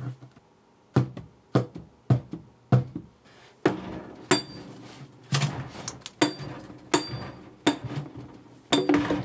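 Hammer blows on a burnt-out Sony 6.5-inch subwoofer driver, knocking its magnet loose. About a dozen sharp strikes, starting about a second in, come roughly every half-second to second.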